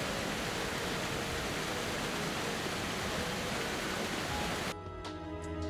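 A steady, even rushing noise that stops abruptly near the end, where background music with held tones takes over.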